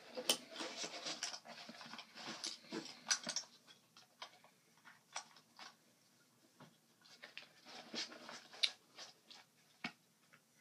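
Quiet handling noise: irregular rustles, scrapes and small clicks as a practice grenade is worked into the grenade pocket on the side of an ALICE ammo pouch.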